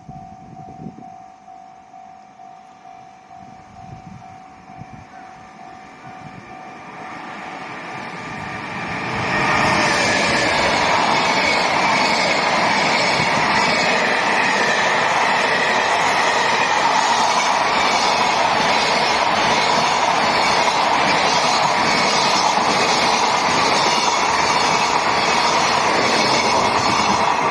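Freight train approaching and then passing close by: a growing rumble that becomes a loud, steady run of wagon wheels on the rails from about nine seconds in.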